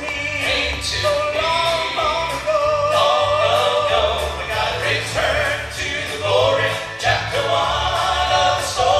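Southern gospel vocal group singing in harmony, holding long wavering notes over instrumental accompaniment with a steady bass.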